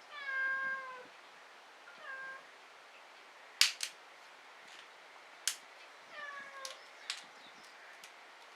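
A cat meowing three times, each call falling in pitch: a long one at the start, a short one about two seconds in, and another about six seconds in. In between come a few sharp pops from the burning firewood, the loudest about three and a half seconds in.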